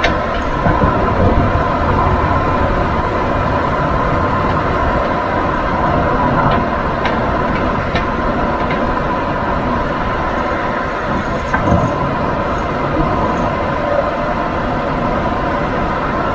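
Nissan Serena C25 minivan on the move, steady road and running noise from inside the vehicle, with a few short knocks around the middle. The knocks are the clunking of the subframe where its rubber bushing has come out, letting metal hit metal as the suspension moves.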